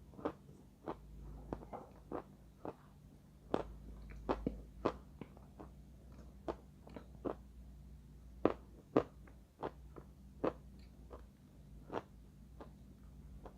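Edible chalk being bitten and chewed, a long irregular run of sharp crunches about two a second.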